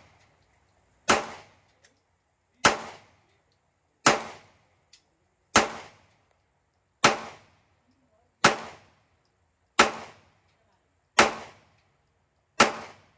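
HS9 Compact 9 mm pistol firing 124-grain full-metal-jacket rounds in slow, deliberate single shots, nine shots about a second and a half apart, each with a short fading echo.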